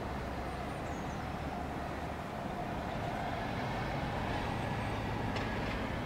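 Road traffic below: a steady hum of vehicles, one passing and growing slightly louder. A faint high chirp about a second in and a short click near the end.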